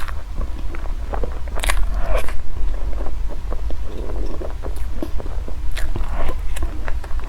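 Close-miked eating: a person biting and chewing food, with a steady run of small wet clicks and crackles and a few louder crunchy bites, one near the start and one towards the end.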